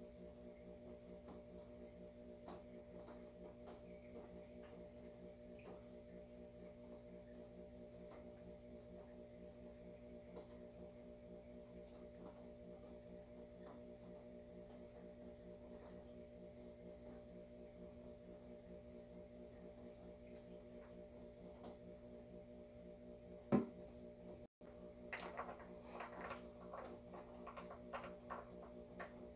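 A faint, steady electrical hum with light, scattered clicks of hands working in an engine bay. Near the end, a sharp click and then a few seconds of louder clicking and rattling as a plastic bottle and small parts are handled at the engine.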